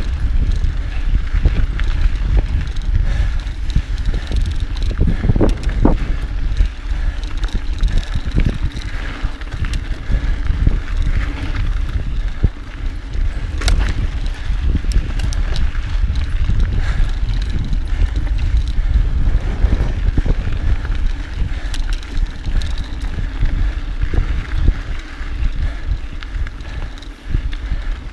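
Mountain bike rolling along a dirt trail: tyres running over dirt and rock with scattered clicks and rattles from the bike, under a steady low rumble of wind on the microphone.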